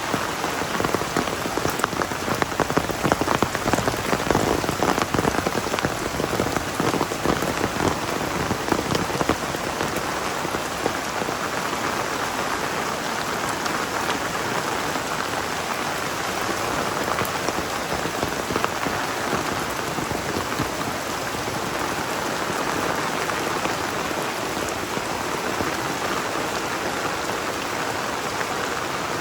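Heavy rain falling steadily, a dense hiss of drops on the ground and nearby surfaces. Sharper, louder patter of close drops stands out over roughly the first ten seconds.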